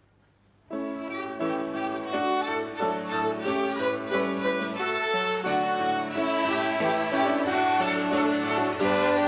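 Violin ensemble playing the instrumental opening of a children's song, starting with bowed, sustained notes less than a second in.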